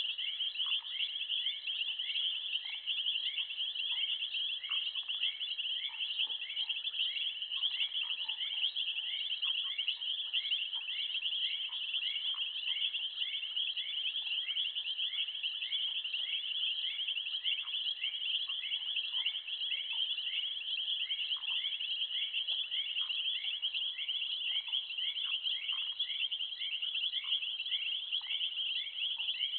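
Steady high-pitched chorus of bush insects, crickets or similar, trilling without a break. A regular short chirp repeats about twice a second over it, with scattered faint calls lower down.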